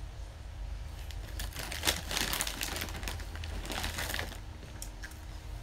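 Foil snack wrapper crinkling as it is handled in the hands, a dense crackle for a few seconds in the middle with one sharper crackle about two seconds in.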